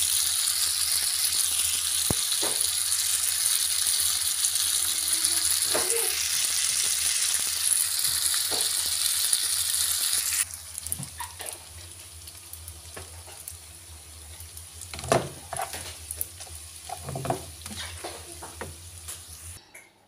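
Spaghetti sizzling in oil in a frying pan, a steady hiss that drops off suddenly about halfway through. After that comes a quieter sizzle with a few scattered light knocks and clicks.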